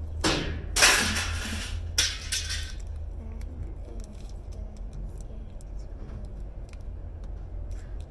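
Scrap being rummaged through in a dumpster: three loud scraping, clattering bursts in the first three seconds, then scattered light clinks over a steady low hum.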